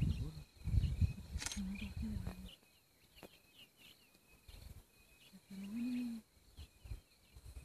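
Small birds chirping in quick short calls over a steady high insect note. Low rumbling fills the first couple of seconds, with two short low hums, one about a second and a half in and one near six seconds.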